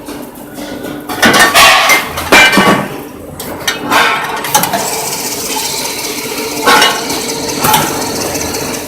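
Multi-head drilling machine at work, with metallic clinks and clatter of metal parts. The loudest clatter comes between about one and three seconds in, with two more sharp clinks near the end. A steady machine hum with a held tone sets in about halfway through.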